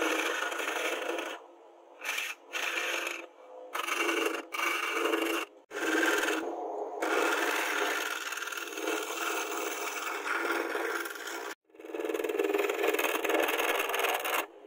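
A steel file held against a wooden handle turning on a lathe, scraping off shavings. The rasping comes in several stretches, broken by brief stops as the file is lifted.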